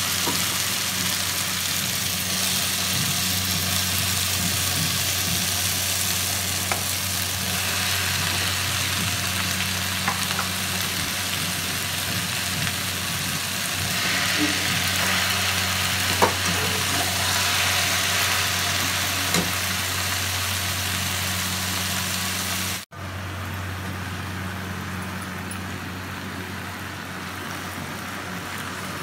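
Chopped poi (Malabar spinach) greens sizzling as they hit hot oil and fried spice masala in a kadhai, with a steady low hum underneath and a few light clicks. The sound cuts out for an instant about three quarters of the way through, then goes on a little quieter.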